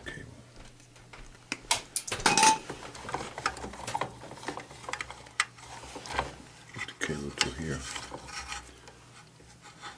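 Metal clinks, clicks and rattles from wires and small parts being handled in a burner's sheet-metal junction box, loudest in a cluster about two seconds in.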